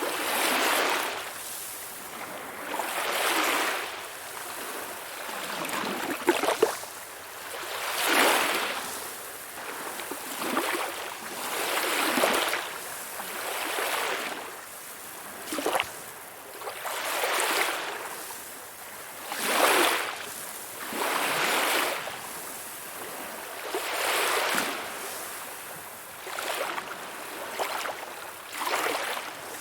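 Calm sea waves, small swells washing in and drawing back about every two seconds, with a brief splash about six seconds in.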